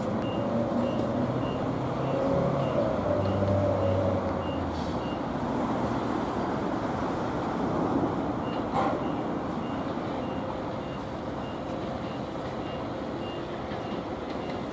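Hankyu 5300 series electric train running slowly past, with a low hum that is loudest in the first few seconds and then fades. A thin high beep repeats about twice a second, and there is one sharp click about nine seconds in.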